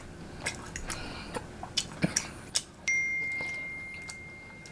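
Small clicks and smacks of eating rotisserie chicken, then about three seconds in a single bright notification chime starts suddenly and fades away slowly.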